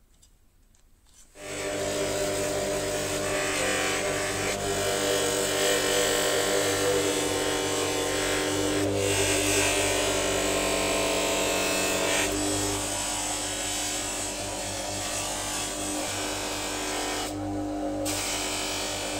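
Bench grinder running with a buffing wheel, a high-speed-steel knife blade pressed against the spinning wheel to polish it: a steady motor hum with the rubbing of steel on the wheel over it. It starts suddenly about a second in, and the rubbing eases briefly near the end.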